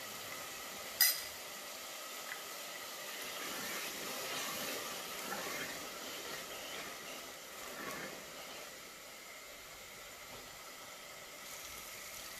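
Tomato-onion masala sizzling softly in an aluminium pressure cooker while it is stirred with a wooden spoon, a little louder from about three to eight seconds in. A single sharp clink about a second in, the spoon tapping the glass spice bowl.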